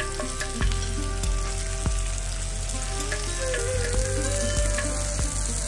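A paratha frying in oil on a flat pan over a gas flame, with a steady sizzle and occasional sharp clicks of metal utensils.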